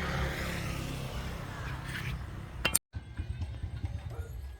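A motor running steadily with a low hum. There is a sharp click and a momentary cut in the sound a little under three seconds in.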